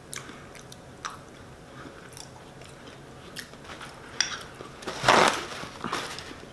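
Close mouth sounds of chewing a sauce-dipped boiled potato: soft wet smacks and clicks. About five seconds in, a louder rasping rustle as a paper towel is torn off the roll, with a smaller rustle about a second later.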